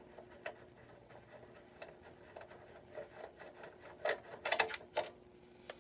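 Hand tools and metal parts clinking and knocking in scattered sharp clicks, with a quick cluster of louder clinks about four to five seconds in.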